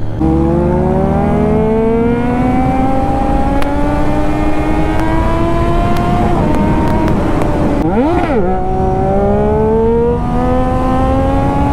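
Triumph Daytona 675's inline-three engine pulling under acceleration, its pitch climbing steadily. There is a slight break in the pitch about six seconds in and another near ten seconds, where gears change, and a quick dip and rise in the pitch around eight seconds.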